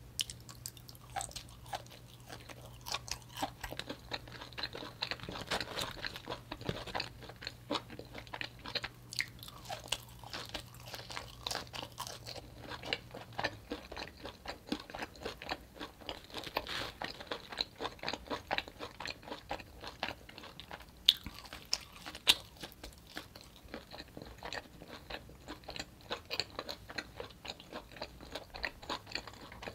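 Close-miked crunching and chewing of parmesan-crusted roasted vegetable slices: many small, irregular crisp crunches, with two sharper, louder crunches about two-thirds of the way through.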